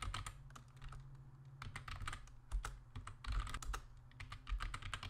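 Typing on a computer keyboard: short runs of key clicks, one run per word typed, with brief pauses between them, over a low steady hum.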